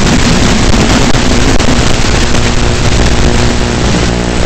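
E-flite UMX Turbo Timber's small brushless electric motor and propeller running in flight, heard through the onboard FPV microphone as a loud, steady hiss of wind rush with a low motor hum under it. About four seconds in, the hiss eases a little and the hum steadies.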